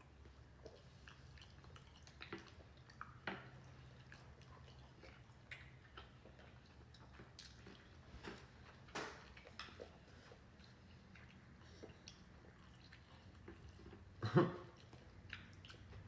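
Quiet eating sounds: chewing with small scattered mouth clicks and taps, and one short louder sound near the end.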